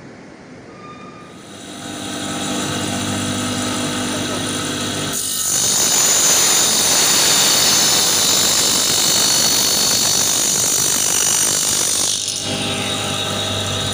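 Table saw motor running with a steady hum, then a long cut through wood from about five seconds in to about twelve seconds in, before it goes back to spinning freely.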